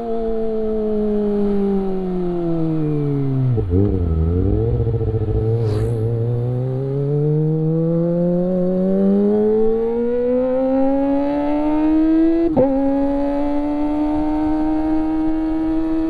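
Kawasaki ZX25R's 249 cc inline-four through an Akrapovic exhaust: revs fall for about four seconds as the bike slows and stay low for a couple of seconds. Then it accelerates, the pitch climbing steadily until an upshift about twelve seconds in drops it briefly before it climbs again.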